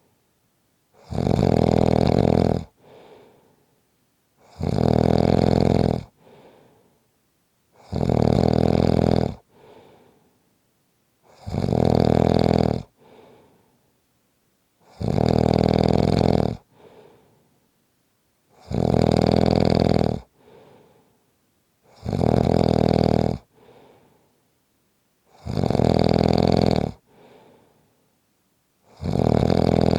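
A person snoring loudly and evenly: nine long snores, one about every three and a half seconds, each followed by a short, much fainter breath out.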